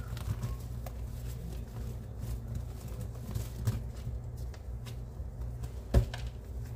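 Hands crumbling and pressing damp clumps of homemade cleaning powder in a sink, making many small soft crunches and patters over a low steady hum. There is one loud knock near the end.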